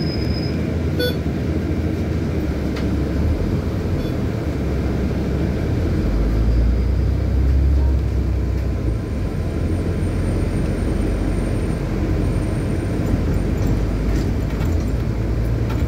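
Cabin noise inside a moving Dan city bus: a steady low engine and road rumble that grows a little heavier for a couple of seconds around the middle.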